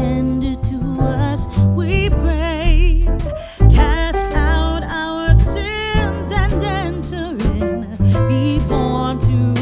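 Background song: a singer with vibrato over acoustic guitar and a steady bass line.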